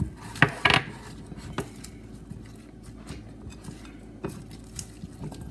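Salad tongs clacking against the salad bowl and against each other as salad greens are tossed. There are two sharp knocks in the first second, then lighter scattered clicks.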